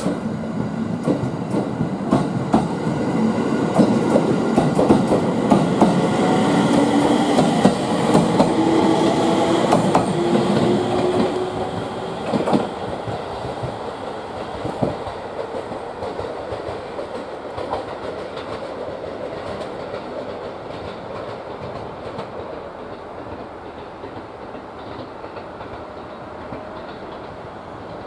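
701-series electric train pulling away past the platform: wheels clicking over the rail joints, and the traction motor whine rising in pitch as the train gathers speed. The sound fades away after about twelve seconds.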